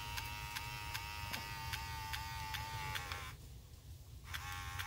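Small 12 V DC motor of a Jeep Grand Cherokee ZJ memory side-mirror actuator running on a bench power supply: a steady whine with a regular tick a little under three times a second. It stops about three seconds in and runs again briefly near the end. The repaired motor is working.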